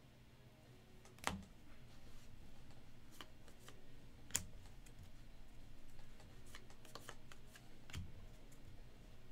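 Faint handling of trading cards, card stock sliding and rustling as a pack is thumbed through, with scattered sharp clicks; the loudest clicks come about a second in and about four seconds in.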